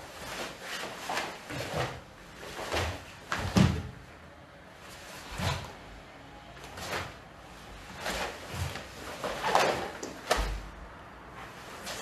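Karate kata performed barefoot on a wooden floor: about a dozen sharp snaps and swishes of the cotton gi with the strikes and turns, some with a low thump of a foot landing on the boards, the loudest about three and a half seconds in.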